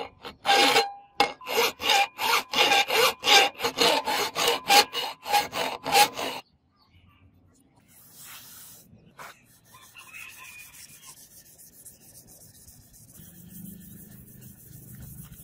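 A flat hand file rasping across the steel of a katana blade in quick, even back-and-forth strokes, about three a second, which stop abruptly about six seconds in. After that comes much fainter, irregular rubbing of the blade being sharpened by hand.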